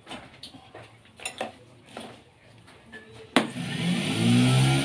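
A metal spoon clinks a few times against the cotton candy machine's spinner head and stainless bowl as sugar is loaded. About three and a half seconds in, a loud hum starts suddenly and rises in pitch before it levels off.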